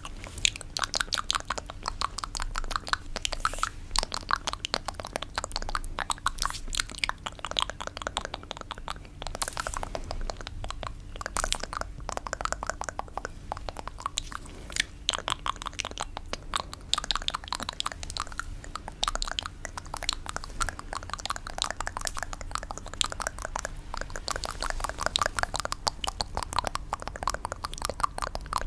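Rapid fingernail tapping, a dense, continuous run of small, quick clicks with a few louder clusters.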